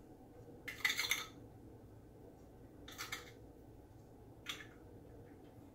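Three short scrapes and clinks of a spoon against a small bowl, about a second in, about three seconds in and about four and a half seconds in, as salt is scooped out to season melted spiced butter for kitfo.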